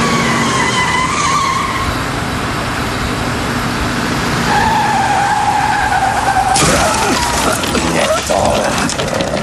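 Cartoon sound effects of a van speeding along: engine noise with tyres squealing in a held screech, then a rougher, brighter rush of noise about two-thirds of the way through as it skids around the corner.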